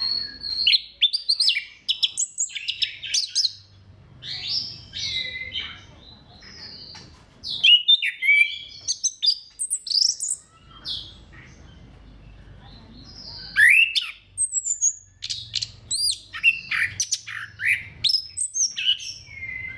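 Orange-headed thrush (anis kembang) singing a varied song of quick whistled and chirping notes, delivered in phrases of a few seconds with short pauses between them.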